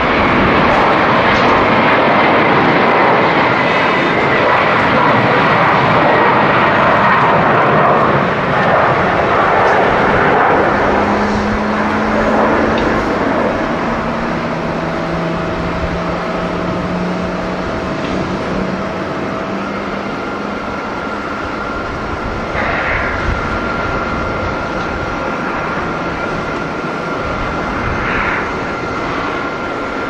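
Boeing 777 twin-engine jet airliner taking off at full thrust. A loud, steady jet rush is strongest as it lifts off and then slowly fades as it climbs away, with a few faint whining tones on top.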